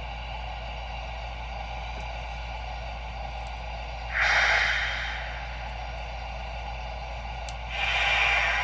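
Two bursts of steam hiss from the LGB HSB Mallet model locomotive's sound system, one about four seconds in and one near the end, over a steady hum.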